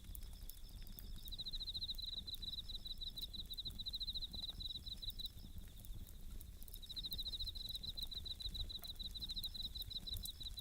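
Bell crickets (suzumushi) chirping in fast, high pulsed trills that come in phrases a few seconds long, over a campfire crackling with scattered sharp pops and a steady low rumble.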